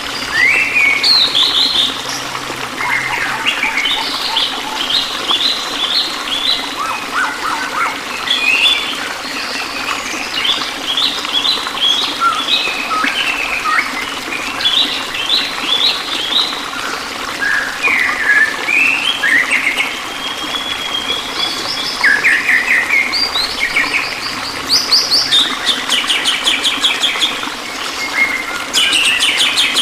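Songbirds chirping and twittering in quick repeated phrases throughout, over a steady hiss of running water.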